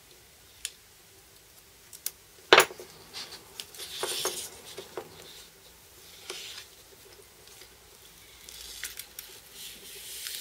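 A contour-cut sheet of T-shirt transfer paper being picked at and peeled by hand: scattered paper crackles and rustles with small clicks, the sharpest click about two and a half seconds in.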